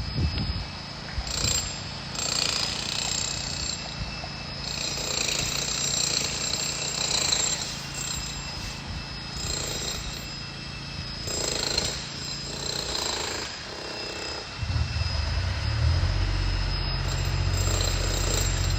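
Power tools cutting and chipping at concrete in the brick wall, starting and stopping in short bursts. About fifteen seconds in, a steady low engine hum starts up underneath.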